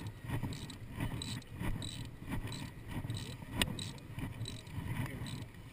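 Sailboat under way: a low rumble of wind and water with scattered clicks and knocks from the boat's rigging and deck fittings, and one sharp knock about three and a half seconds in.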